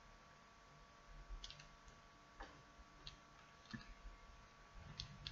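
Faint ticks and light scratches of a pen writing on notebook paper: several short strokes at uneven intervals over near-silent room tone.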